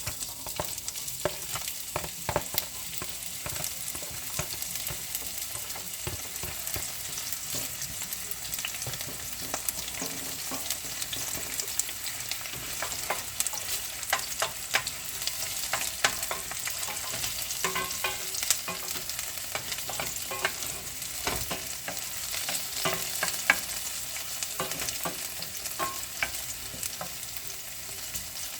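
Food sizzling as it fries in a hot pan, stirred with a utensil that clicks and scrapes against the pan many times.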